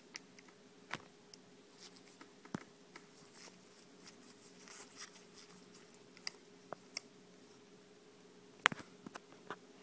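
Small scattered clicks, taps and light scrapes of a small tool and gloved fingers working at the connectors inside an opened iPhone 5c, with one sharper click near the end. A faint steady hum runs underneath.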